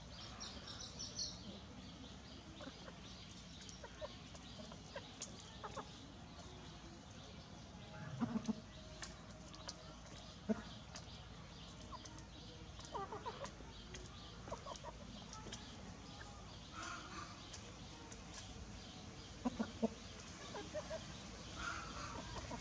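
A cockerel and chicks clucking in short calls every few seconds, with small ticks in between. A high, buzzing trill sounds in the first second or so.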